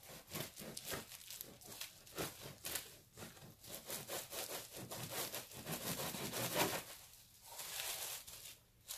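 A knife sawing back and forth through the crust of an unsliced loaf of bread on a plastic cutting board, in many short repeated strokes.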